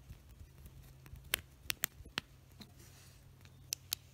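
A small flathead screwdriver working the screw of a screw-terminal block on a DC barrel-jack adapter: a few faint, sharp clicks and ticks of metal on the terminal as the wire is clamped, in two small clusters, over a low steady hum.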